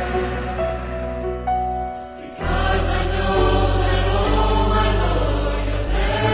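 Choir singing sacred music in long held chords over a steady low tone. The sound thins out about two seconds in, then a fuller chord comes in.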